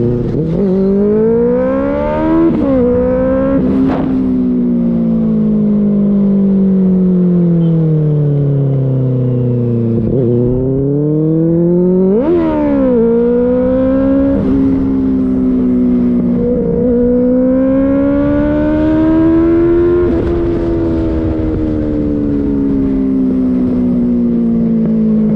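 Benelli 600i's inline-four engine on the move: its pitch climbs and drops sharply at each upshift, quickly twice in the first few seconds, then sinks slowly as it slows, climbs hard again and shifts about halfway through before settling to a steadier cruise.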